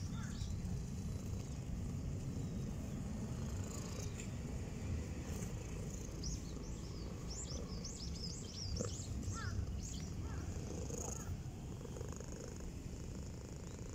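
Grey-and-white cat purring steadily, close up, while it is being stroked.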